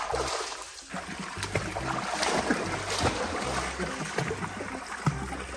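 Pool water splashing and lapping, with irregular small splashes, as animals swim in it.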